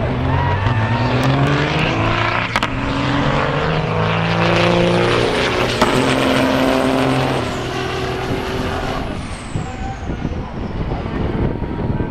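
Two semi-truck diesel engines at full throttle, launching and accelerating hard down a drag strip. Their pitch climbs and drops back with each gear shift. A truck passes close by, and the sound then falls away into the distance.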